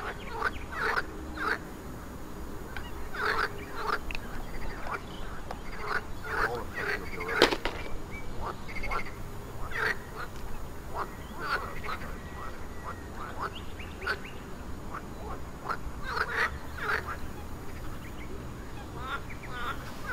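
Waterfowl calling over and over, short calls coming every second or so, with one sharp click about seven and a half seconds in.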